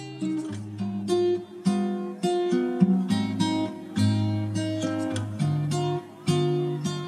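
Background music: an acoustic guitar picking and strumming chords, a new note or chord about every half second.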